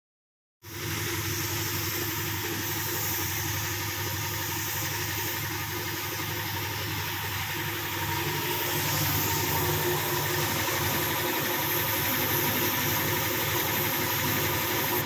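Air compressor running steadily, with a loud hiss of compressed air through a paint spray gun; it starts abruptly about half a second in.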